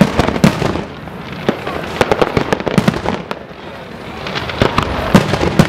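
Fireworks display: aerial shells bursting in an irregular string of sharp bangs, two or three a second, over a steady background of noise.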